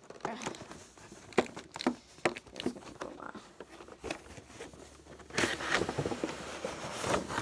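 Toy box packaging being handled: scattered taps and clicks, then a couple of seconds of rustling and crinkling near the end.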